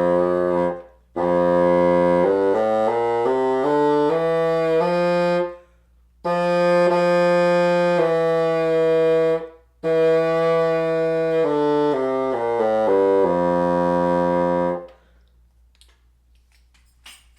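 Bassoon played to test a freshly clipped reed: four phrases of stepping notes and long held tones with short breaks between them. The player hears the E still dropping slightly flat.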